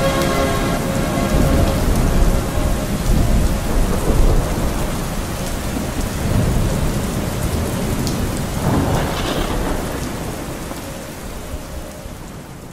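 Rain and thunder sound effect: steady rainfall with low rolling thunder, a louder swell about nine seconds in. The last reverb tail of the music dies away in the first second, and the storm fades out near the end.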